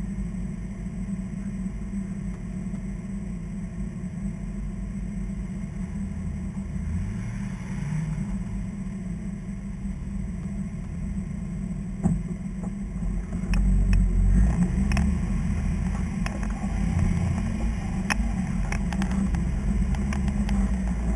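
Off-road rig's engine running at crawling speed, with a short rev about seven seconds in. From about halfway on the engine is louder and sharp clicks and knocks come through.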